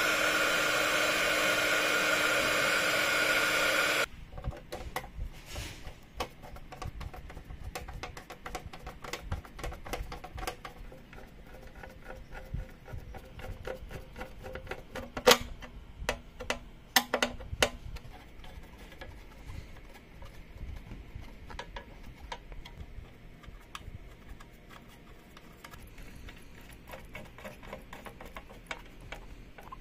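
A hot-air heat gun blows steadily, shrinking heat-shrink tubing over a wire joint, and cuts off about four seconds in. After that a screwdriver drives screws into the sheet-metal cover of a Technics SU-7 amplifier: small clicks and scrapes, with a few sharp knocks around the middle.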